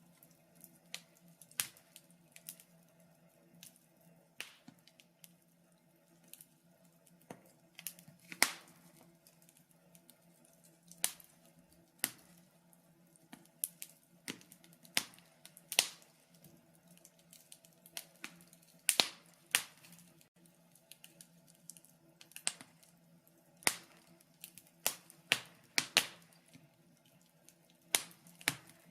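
Wood campfire crackling, with irregular sharp pops, some faint and a few loud, scattered through with no regular rhythm.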